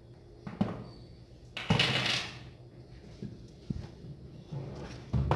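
Handling noises from work on a scooter on a table: a few light knocks and clicks, a short scraping rustle about two seconds in, and a louder knock near the end.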